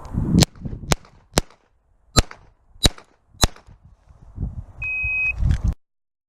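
Six shots from a Ruger Mark III 22/45 .22LR pistol, about half a second apart with a slightly longer pause after the third, then a short electronic beep about five seconds in.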